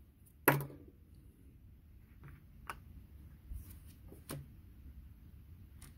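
A few small clicks and taps in a quiet room: one sharp click about half a second in, then fainter ticks scattered through the rest.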